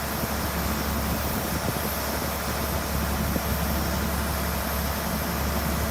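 A heavy vehicle's engine running steadily, heard as a low hum under a constant rushing hiss.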